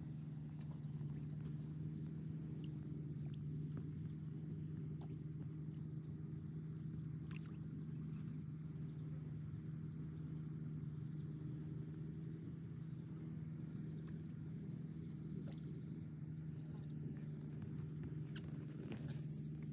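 A steady low hum that never lets up, with faint scattered ticks and short high chirps over a constant high hiss.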